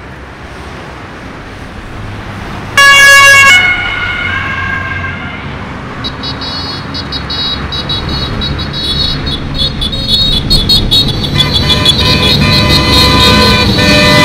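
A convoy of motorcycles riding past in traffic, their engines building in loudness from about six seconds in. A loud horn blast about three seconds in is followed by a lower horn, and another long horn sounds from about eleven seconds in.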